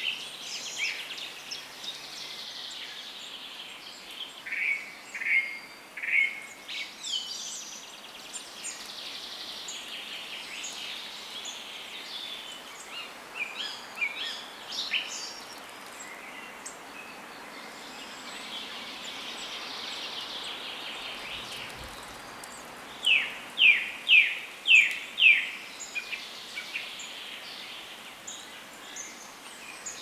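Several songbirds singing over one another in short phrases of quick high notes. The loudest is a run of about six sharp, downward-slurred notes some three-quarters of the way through.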